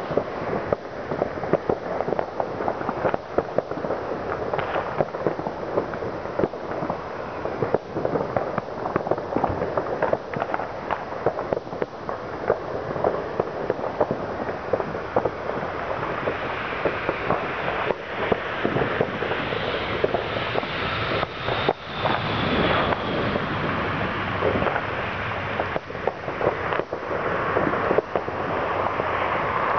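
New Year's Eve fireworks and firecrackers going off all over a town: a dense, unbroken crackle of many overlapping bangs and pops, none standing out much above the rest.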